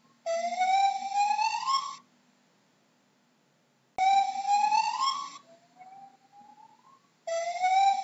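Gibbon calling: long, rising whoops, three loud ones of about a second and a half each, starting just after the start, about four seconds in (abruptly) and about seven seconds in, with fainter rising notes between the second and third.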